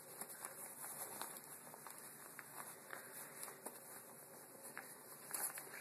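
Faint rustling with scattered light clicks and taps: a toddler's snowsuit and shoes being handled.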